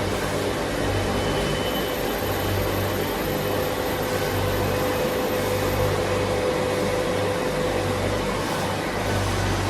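Tornos-Bechler Deco 2000/20 CNC lathe running under power: a steady mechanical whir with a low hum that swells and fades irregularly, and a faint steady tone above it.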